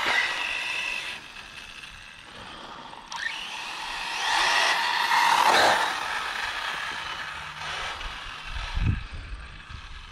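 Whine of a 1/8 RC truggy's brushless motor, a Castle Creations 2200KV, with its drivetrain as it runs on asphalt. It fades after a pass, rises in pitch as the truck accelerates about three seconds in, and is loudest as it passes again around five seconds. It fades after that, with a brief low thump near nine seconds.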